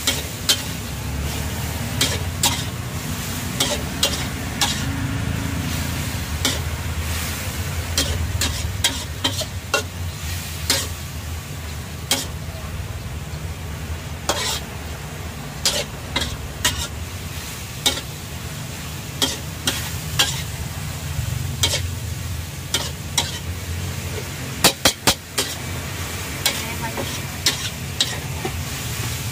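Metal spatula scraping and clanking against a steel wok as noodles and vegetables are stir-fried, over a steady sizzle. A quick run of loud clanks comes near the end.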